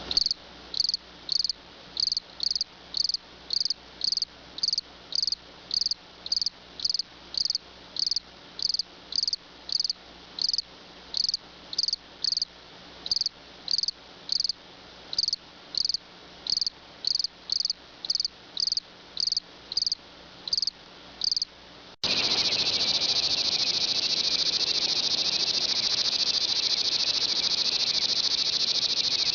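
Crickets: one cricket chirping in short, evenly spaced chirps, about one and a half a second, then about 22 seconds in an abrupt switch to a continuous, unbroken high trill of crickets.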